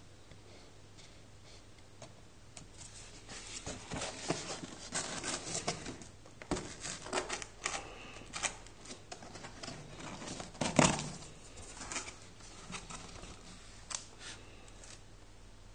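A cardboard box being turned over and opened by hand: scraping, rustling and tapping of the cardboard and its flaps, with one louder knock about two-thirds of the way through.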